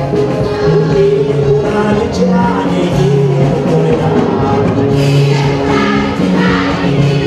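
Group singing with musical accompaniment, loud and continuous, with held notes over a steady bass line.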